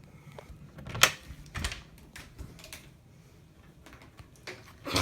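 Scattered sharp clicks and knocks at irregular intervals, the loudest about a second in, then a louder rushing noise right at the end.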